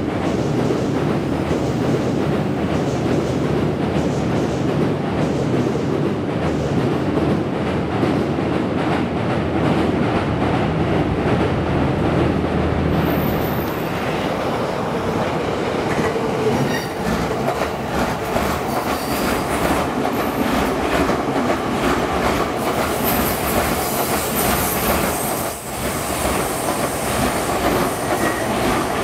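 Electric commuter train crossing a steel bridge, a steady low rumble. About halfway through, a train rounds a curve over points: rapid clicking of wheels over rail joints and crossings, with a high-pitched wheel squeal in the last few seconds.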